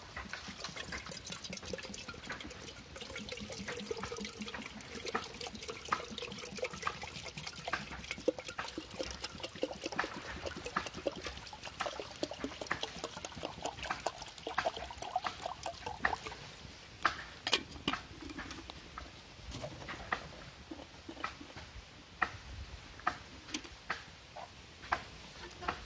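Small fire of dry sticks and twigs crackling and popping, with many short sharp snaps. Water is poured from a plastic jerrycan into a kettle at one point.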